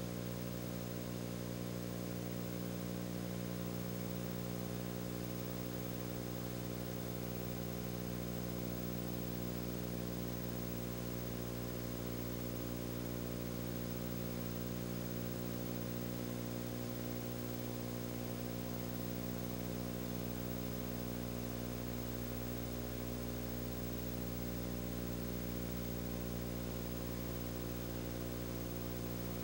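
Steady low electrical hum with a stack of even overtones over a layer of hiss, with no other sound: the noise floor of a silent home-movie film transfer.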